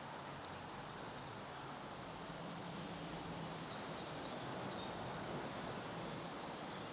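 A songbird singing a fast run of high, quick falling notes over the steady rush of a woodland stream.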